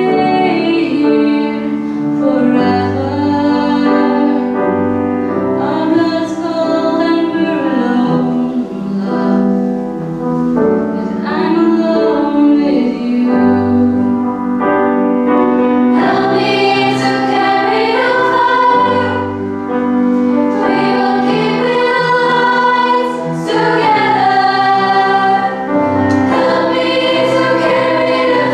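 Female pop choir singing a slow song in harmony, with a voice at the front microphone carrying the melody and a grand piano accompanying.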